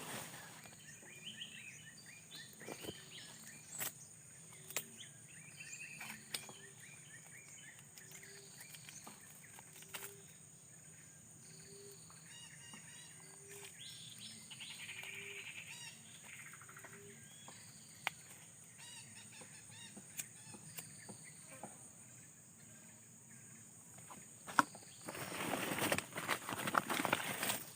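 Outdoor ambience of birds calling over a steady high insect drone, with a short low note repeating about once a second through the middle. Near the end a louder stretch of noise comes in.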